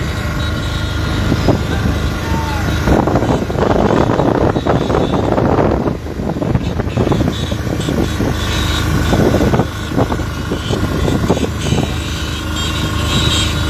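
Steady drone of many motorcycle engines running together in a large convoy, over the low rumble of the vehicle carrying the microphone.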